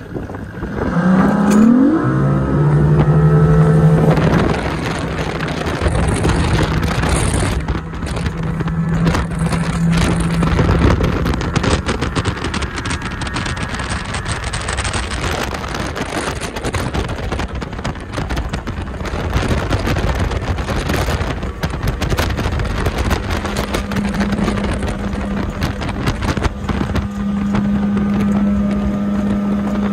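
Evinrude 200 two-stroke outboard motor launching hard: the engine note sweeps up sharply about a second in and holds steady at full throttle. Through the middle, rushing wind and water with repeated knocks from the hull slapping through chop take over. The engine returns as a steady, higher tone at cruising speed for the last several seconds.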